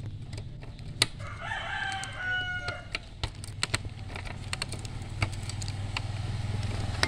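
A rooster crows once, a single held call of about a second and a half. Sharp clicks of printer parts being handled come before and after it, over a steady low hum.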